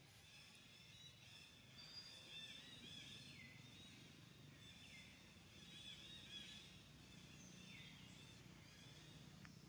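Faint outdoor wildlife chorus: many high-pitched calls overlapping steadily, several sweeping down in pitch, over a low steady rumble.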